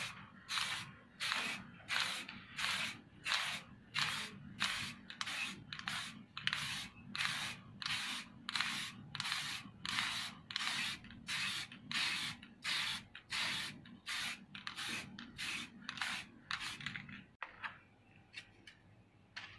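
Aerosol spray can spraying red paint onto wooden fan slats in short, evenly spaced hissing bursts, about three every two seconds, stopping about seventeen seconds in.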